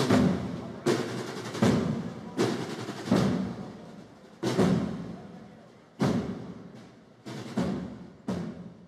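Deep drums struck one at a time in a slow, uneven beat, about a stroke a second. Each stroke rings out and fades before the next, and two strokes near the end come closer together.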